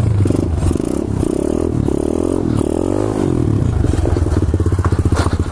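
Small pit bike engines running, with a brief rev that rises and falls about two to three seconds in, settling into a fast, pulsing idle near the end.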